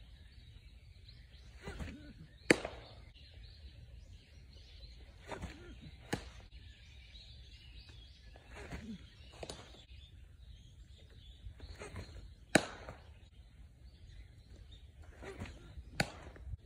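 Pitched baseballs smacking into their target four times, two of the hits much louder than the others, with fainter thuds in between over low outdoor background noise.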